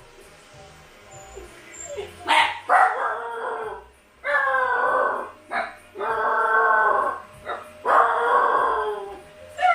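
Siberian husky puppies howling while left home alone. After a quiet start there are about four drawn-out howls, each over a second long and sliding slightly down, with short yips between them.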